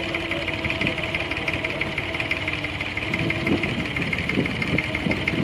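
A boat's engine running steadily: a constant hum with a fast, even knocking rhythm.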